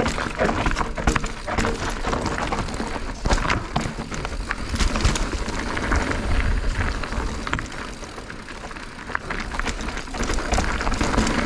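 Mountain bike being ridden over a rocky technical trail: tyres rolling over rock and the bike rattling, with many short sharp knocks over a constant rush and low rumble.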